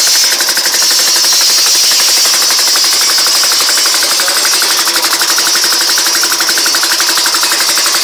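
Small two-stroke engine running on compressed air fed by a hose instead of fuel: a fast, even chatter of rapid pulses over a steady air hiss.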